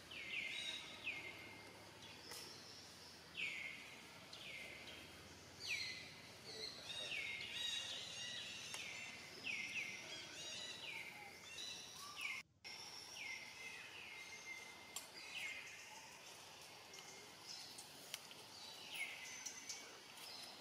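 Birds calling in the background: many short falling calls, repeated over and over and overlapping, with a brief silent gap about twelve seconds in.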